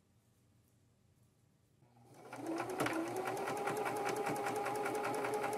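A Singer Esteem II electric sewing machine starts about two seconds in, quickly comes up to speed, then stitches steadily through linen with a fast, even run of needle strokes over its motor hum.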